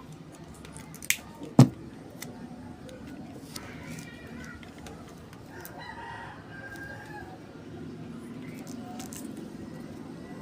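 A rooster crowing from about four to seven seconds in. Two sharp clicks come about a second and a half in, the second one the loudest sound.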